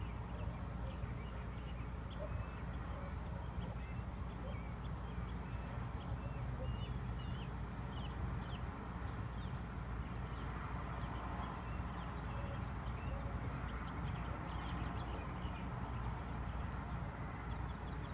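Outdoor garden ambience: a steady low background rumble with many short, high bird chirps scattered throughout.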